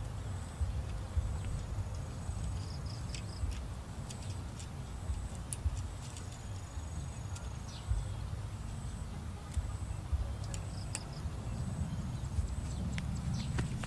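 Outdoor ambience: a steady low rumble of wind on the microphone, with a faint high-pitched chirp repeating about every half second and a few light clicks from handling string and bamboo.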